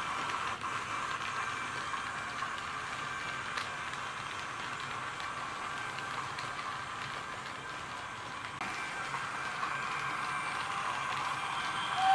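H0 scale model train running on the layout: a steady mechanical hum with a few light clicks of wheels on the track, from the Brawa E42 electric locomotive model with sound and its coaches. It grows louder near the end as the locomotive comes closer.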